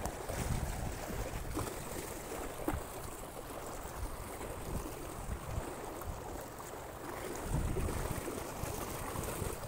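Wind rumbling on the microphone, swelling twice, with a few light clicks.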